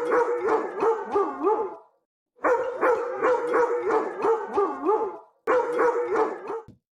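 A dog vocalising: a held, wavering howl broken by quick barks about two a second, in three stretches that cut off abruptly.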